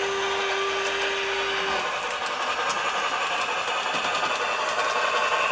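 HO-scale model of a large articulated steam locomotive running along the track, giving a steady mechanical whir of motor, gearing and wheels with faint clicks. A steady low hum stops about two seconds in.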